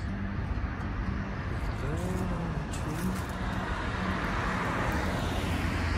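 Road traffic noise from cars on the road alongside: a steady rushing of tyres and engines that slowly grows louder towards the end.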